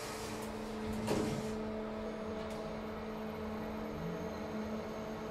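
Elevator car doors closing, meeting with a single thump about a second in, after which the outside hiss falls away. A steady electrical hum of the KONE MonoSpace machine-room-less traction elevator carries on as the car sets off.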